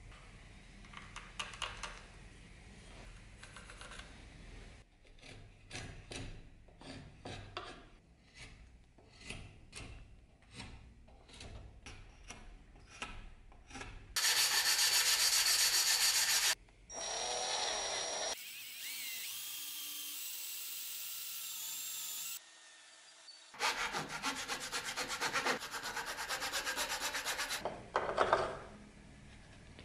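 A hand file rasping a wooden sword-handle blank clamped in a vise. At first it makes light, evenly spaced strokes about two a second, then comes louder and faster in several short takes that start and stop abruptly.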